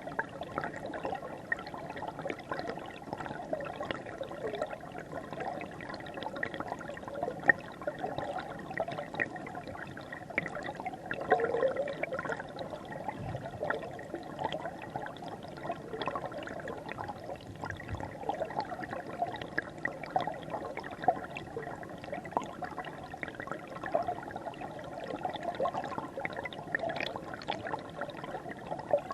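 River water flowing and babbling, recorded close to or in the water: a continuous rushing with many small, irregular splashes and gurgles.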